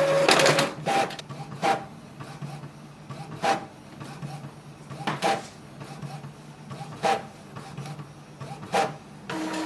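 Epson Expression Home inkjet printer printing a print-head alignment pattern: a louder motor whir at the start, then the print-head carriage sweeping across the page in short passes about every two seconds over a steady low hum. A steady motor whir starts near the end.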